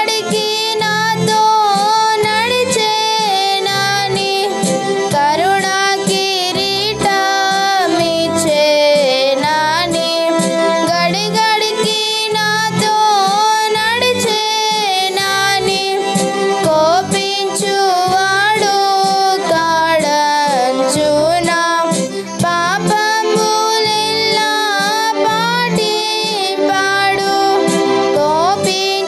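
A girl singing a Telugu devotional song to electronic keyboard accompaniment, her voice wavering on held notes over steady keyboard chords.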